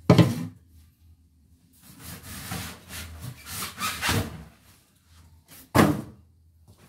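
A white plastic housing piece set down on a wooden tabletop with a sharp knock. A couple of seconds of rustling and handling noise follow, then a second sharp knock near the end.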